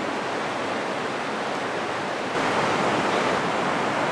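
Steady rushing of flowing water from a nearby river, a constant broad hiss that gets louder about two and a half seconds in.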